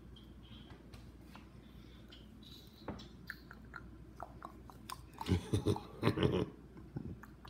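Hands handling a pipe-cleaner and spork craft at a table: scattered light clicks and rustles, then a louder run of crackling rustles and bumps about five to six and a half seconds in.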